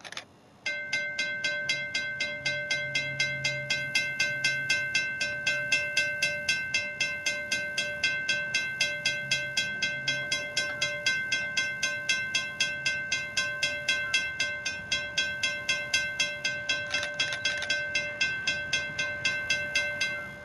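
Railroad grade-crossing bell ringing in a steady, even rhythm of about four strokes a second. It starts about a second in and cuts off at the very end.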